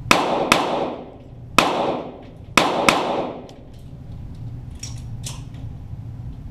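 Five shots from .22 Walther GSP target pistols, each a sharp crack with a short echoing tail off the range walls: two close together, a single one about a second later, then another quick pair. A few fainter clicks follow about five seconds in.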